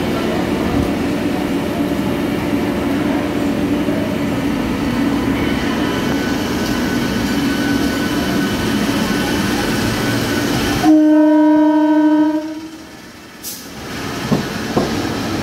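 Electric multiple-unit local train running at the platform with a steady hum, then about eleven seconds in its horn sounds once, a single pitched blast of about a second and a half. The level then drops, with a couple of short knocks near the end.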